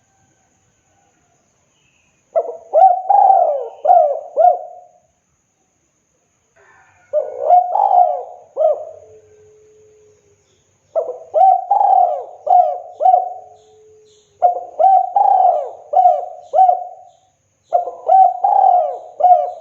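Spotted dove (tekukur) giving its cooing song: five repeated phrases a few seconds apart, each a quick run of four or five coo notes.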